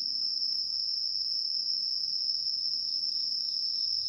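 Dense chorus of night-singing insects: a steady, high-pitched trill that never breaks.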